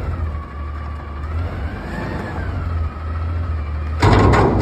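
Autocar Xpeditor garbage truck's engine revving under load with a wavering hydraulic whine as the Heil Odyssey front-loader arms lift the container over the cab. About four seconds in comes a sudden loud clatter as the container reaches the top.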